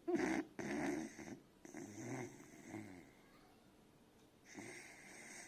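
Beagle puppy snoring in its sleep: a quick run of snores over the first three seconds, a pause of about a second and a half, then a breathier, hissing breath near the end.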